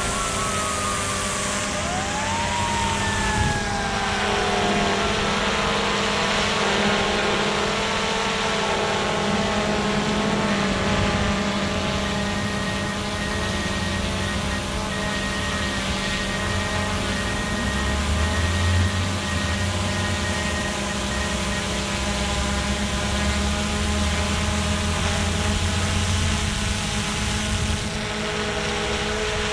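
DJI Mavic 2 Zoom quadcopter hovering close by, its four propellers giving a steady multi-pitched buzzing whine. In the first few seconds a few tones slide up and then down in pitch.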